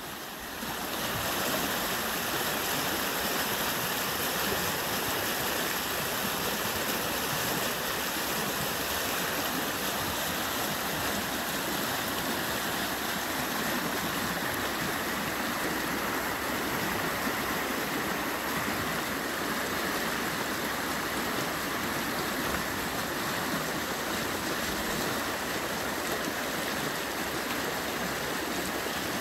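Rain-swollen creek in flood, fast muddy water rushing and breaking over rocks in a steady, dense rush that gets louder about a second in.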